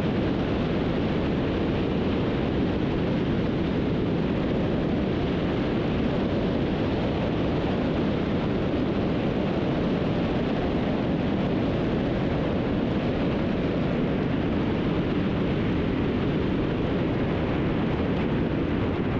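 Steady engine and propeller noise from a Beech 18's twin radial engines, heard inside the cabin.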